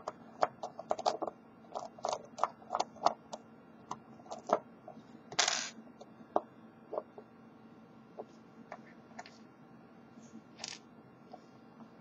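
Small metallic clicks of a brass lock cylinder being taken apart by hand: rapid clicks as the retaining ring is spun off while its little pin is held down, then sparser ticks and a short scrape as the small parts are handled and set down on the table.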